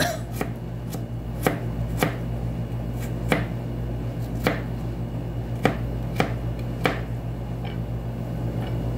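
Kitchen knife slicing peeled ginger into thin slivers: a run of sharp, unevenly spaced taps, about one every half second to a second.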